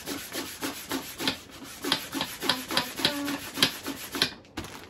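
Small plastic hand pump on a vacuum storage bag's valve, its plunger worked quickly up and down to draw the air out of the bag: about four short rubbing strokes a second, each with a brief squeak, stopping about four seconds in.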